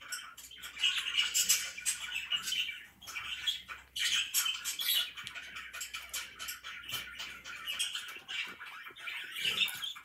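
Pet budgerigar warbling: a continuous stream of quick chirps, chatter and clicks, dipping briefly about three and four seconds in.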